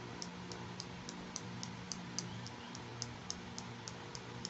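Small plastic toy clicking steadily in the hands, sharp high ticks about three or four a second, over a low steady hum.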